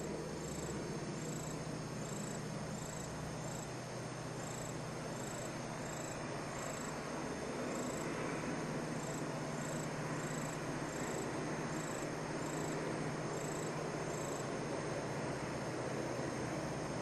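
Diesel locomotive hauling a train of hopper wagons, its engine a steady drone that grows slowly louder as it approaches. Insects chirp at a steady rhythm, about one and a half chirps a second, high above the engine until near the end.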